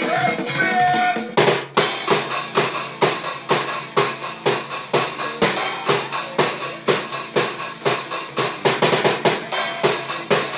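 Acoustic drum kit played live. After about a second and a half of pitched music, a steady, fast beat of bass drum and snare hits starts and keeps going.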